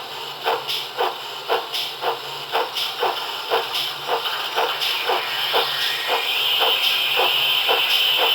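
Sound decoder in a 7mm model GWR 45xx 2-6-2T tank engine playing steady steam exhaust beats, about two a second. About five seconds in the beats fade and a steady hiss of steam takes over.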